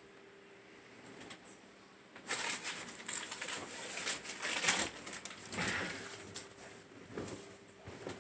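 Close handling noise: rustling and scraping with small clicks, starting about two seconds in and dying away after about four seconds, over a faint steady hum.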